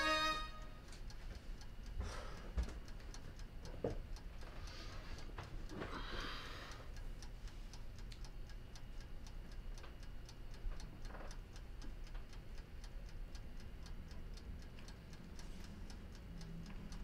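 A clock ticking steadily over a low room hum, with a few soft rustles and knocks in the first several seconds.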